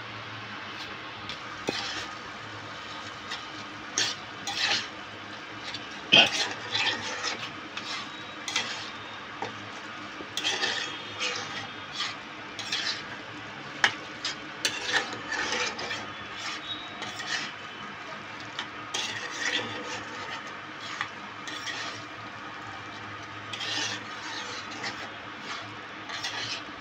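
A flat spatula stirring and scraping through a wok of spinach, potato, eggplant and prawns, with irregular scrapes and knocks against the pan over a steady low hiss.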